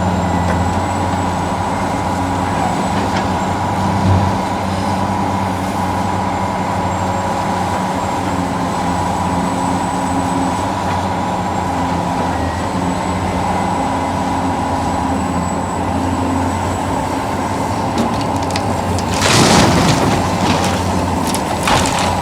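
Radio-controlled model excavator and dump truck running: a steady mechanical hum and whine of their motors. A short hiss about nineteen seconds in, with a shorter one near the end.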